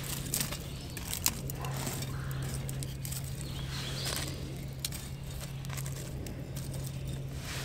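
Dry sticks being handled and laid on campfire coals around a steel cup, giving scattered light clicks, knocks and rustles, over a steady low hum.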